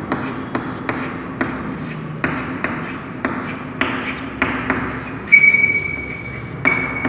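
Chalk tapping and scraping on a chalkboard while words are written, in sharp strokes about two a second. Twice in the last couple of seconds the chalk gives a high-pitched squeal. A low steady hum runs underneath.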